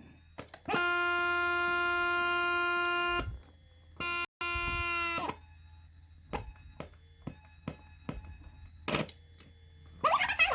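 Circuit-bent Tyco Blue's Clues refrigerator toy glitching: its sound chip holds a steady buzzy electronic drone for a few seconds, cuts out, drones again briefly and slides down, then gives only scattered clicks and faint blips.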